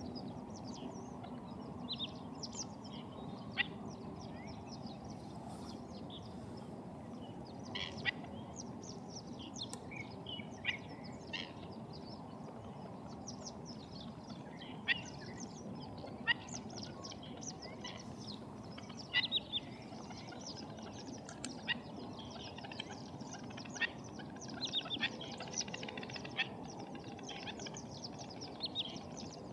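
Black-winged stilts calling: many short, sharp yelping notes, scattered and irregular, some clustered in quick runs, over a steady low background rumble.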